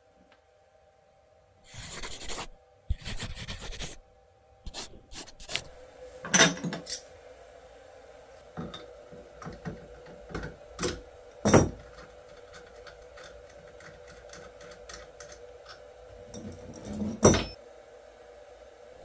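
Two short rasping strokes, like wood being rubbed or filed, then a scattered series of knocks and clicks of wooden parts and tools being handled, over a faint steady hum.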